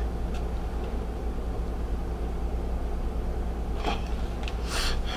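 Small clear plastic baggie of tumbled stones rustling twice, briefly, near the end, over a steady low hum.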